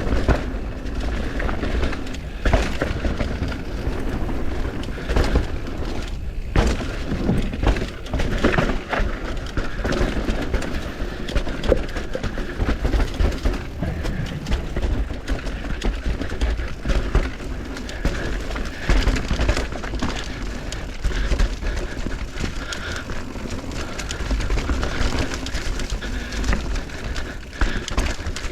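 Mountain bike riding a dirt trail: rumbling tyre and wind noise with frequent rattles and knocks from the bike over rough ground.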